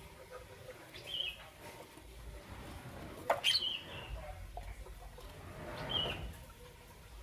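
Lovebirds giving short, high chirps, three of them spread across a few seconds, with a sharp click about three seconds in.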